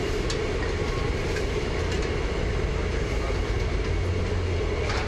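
Gas burner under the soup pots burning steadily: a constant low rushing noise with a steady hum.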